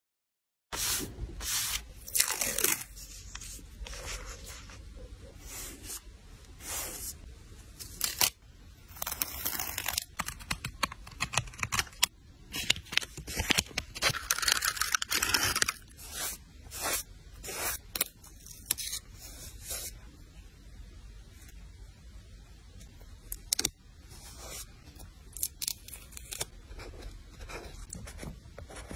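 Journal-decorating paper sounds: paper, stickers and tape being torn, peeled and scraped, a run of short crisp strokes with a couple of longer tearing stretches.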